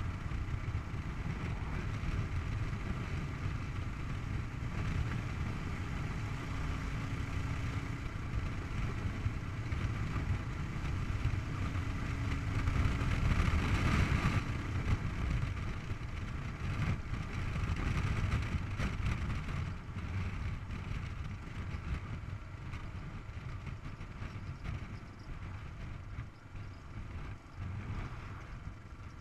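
Kawasaki KLR 650's single-cylinder engine running steadily under way, mixed with wind and road noise. It is loudest about halfway through and eases off toward the end.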